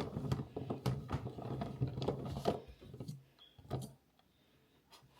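Rotary cheese grater shredding a block of mozzarella, a steady run of rattling clicks over a low hum that stops about three seconds in, followed by a couple of single knocks.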